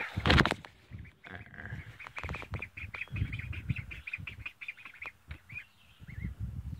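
Young ducks peeping: a quick run of short, high, repeated peeps through the middle, with a couple of single chirps near the end. A loud thump near the start, with low rustling and handling noise underneath.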